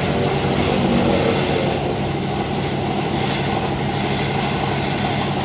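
Foam generator for lightweight concrete bricks running steadily, a constant machine hum under a hiss of air as foam streams from its outlet.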